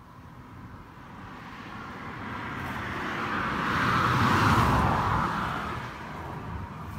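A road vehicle passing on the highway, its tyre and engine noise swelling steadily, loudest about four and a half seconds in, then fading away.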